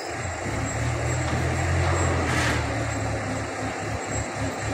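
Diesel engine of a hydra pick-and-carry hydraulic crane running, a low drone that turns into a quick pulsing throb near the end. A short hiss comes about halfway through.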